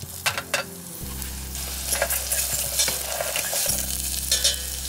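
Diced onion, celery and green bell pepper sizzling in butter in a stainless steel pot while a metal spoon stirs them, with scattered clicks and scrapes of the spoon against the pot.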